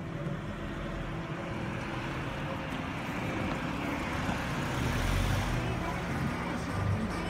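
Subaru Impreza wagon driving slowly past, its engine and tyre noise growing louder as it approaches and passes close about five seconds in.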